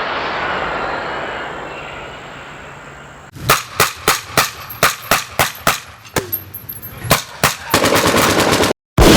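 Battle gunfire sound effects: a fading rumble for the first three seconds, then single gunshots, a couple a second, then a rapid machine-gun burst that cuts off abruptly, and a new loud blast starting right at the end.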